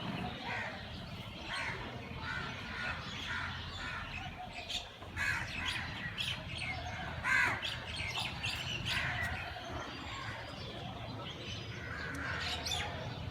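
Birds calling outdoors, many short calls, a few of them sweeping upward, over a low steady background hum.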